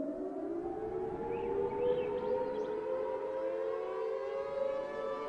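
Civil defense siren finishing its wind-up and then holding a steady wail, several tones sounding together as a chord.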